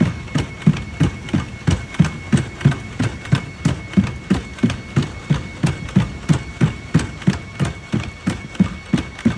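Unitree B2 quadruped robot walking under a heavy payload, its feet striking the concrete paving in a steady rhythm of about three thumps a second.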